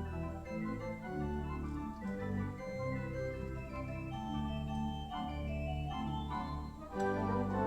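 Church organ playing slow music: sustained chords over a bass line that moves to a new note about once a second, growing fuller and louder about seven seconds in.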